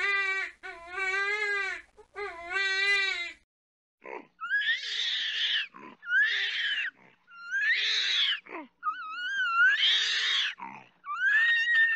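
A deer bleating in a few wavering calls. After a brief pause an orangutan gives about six wailing calls, each roughly a second long, rising and then falling in pitch.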